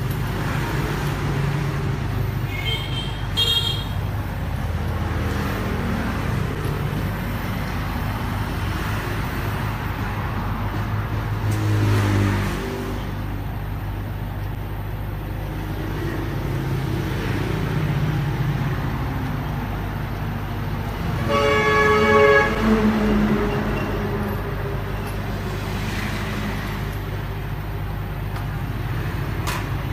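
A vehicle horn sounds once for about a second and a half, about 21 seconds in, over a steady low rumble of road traffic; a short, higher toot comes about three seconds in.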